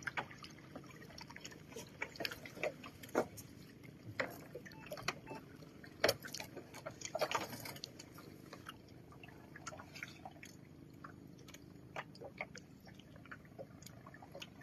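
Water splashing and dripping with scattered irregular clicks and knocks as a gill net is hauled out of the water over the side of a small boat.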